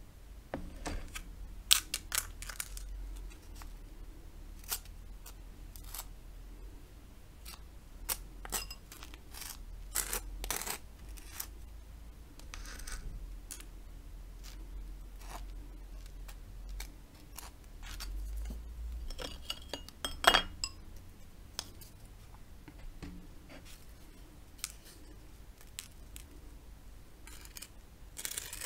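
Wooden knife scooping butter from a plastic tub and scraping it across crisp, dry toast: irregular short scrapes and light clicks, with two sharper clicks, one about two seconds in and one about two-thirds of the way through.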